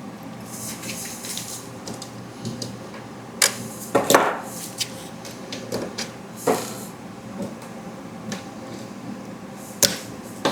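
Hand tools and small metal parts being handled while screws are backed out of a 3D printer's frame with a hex key: scattered sharp clicks and light knocks, the loudest a cluster about four seconds in, with some soft scraping.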